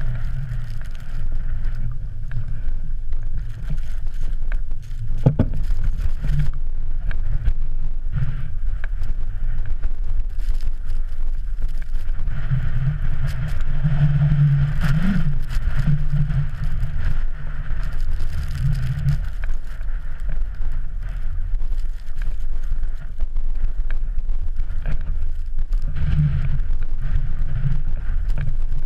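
Wind buffeting an action camera's microphone, a heavy low rumble that swells and eases, with scattered short clicks and knocks.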